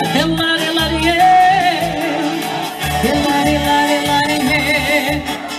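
Live Portuguese popular dance music from a duo: a sung melody with long held notes over a steady pulsing bass beat.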